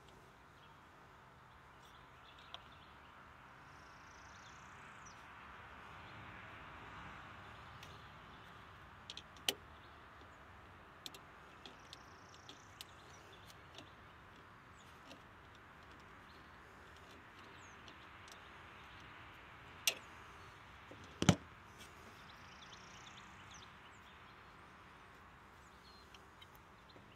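Scattered sharp metal clicks and clinks of a wrench and screwdriver working the terminal nuts of a garden tractor battery, with two louder clinks close together about three-quarters of the way through. Birds chirp faintly in the background.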